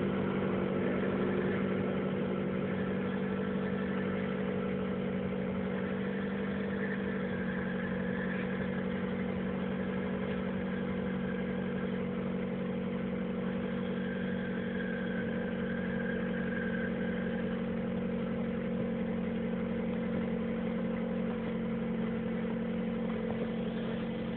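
A 2008 Mazda 3's engine idling steadily just after a cold start near freezing, with an odd extra noise that the owner ties to the clutch, since pressing and releasing the clutch pedal changes it. The idle tone shifts about seven seconds in, and a faint higher whine comes and goes.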